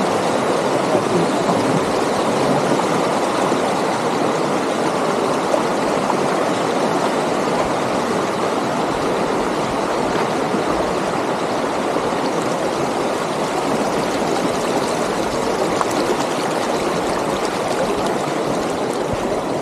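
A river flowing steadily: continuous, even water noise with no breaks.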